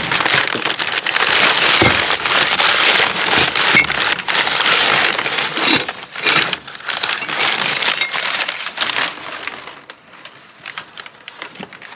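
Crumpled brown packing paper rustling and crackling as hands dig through a cardboard parcel, dying down about nine seconds in.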